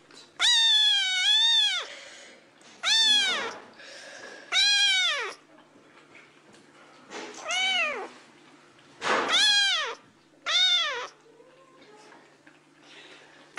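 Grey kitten meowing loudly, about six calls in a row, each rising then falling in pitch; the first is the longest, drawn out over a second.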